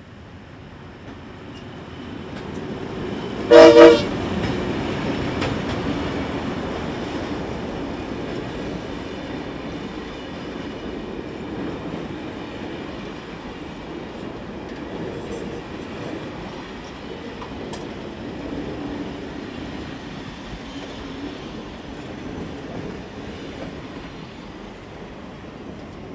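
Heritage diesel-hauled tour train approaching and passing. The locomotive horn gives a short, loud double blast about three and a half seconds in, then the diesel locomotives and the train's wheels run past in a steady rumble that slowly fades.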